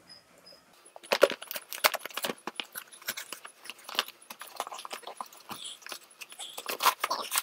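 Cardboard box and packaging being handled and opened, a quick run of rustles and clicks starting about a second in, as the gadget is taken out of its box.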